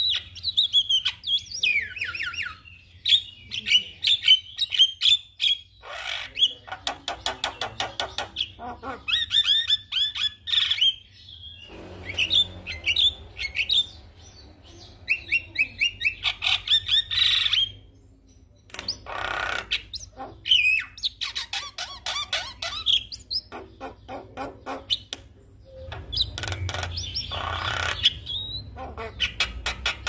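Javan myna singing a varied, chattering song of rapid clicks, whistled notes that slide downward, and harsh squawks, in phrases broken by short pauses.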